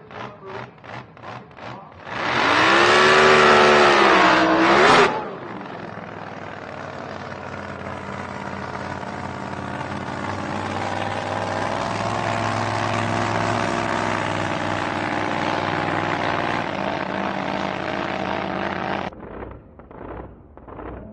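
A boat's engine revs up and down loudly for about three seconds, then runs steadily under a rushing noise that slowly grows louder. It cuts off suddenly near the end. A quick pulsing, about four beats a second, is heard at the start and again after the cut.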